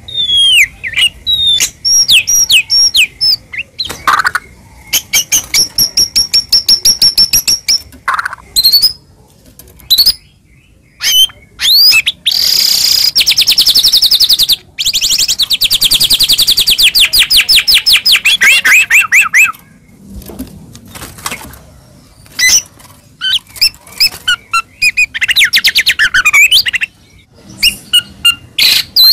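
White-rumped shama (murai batu) singing a loud, varied song of whistles, quick chatters and fast trills. About halfway through comes one long rapid trill of several seconds. It is a song full of mimicked phrases of other birds.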